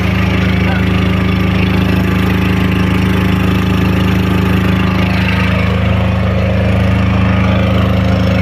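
Concrete vibrator machine running steadily under test, a loud low droning hum with a slight change in its tone about five seconds in.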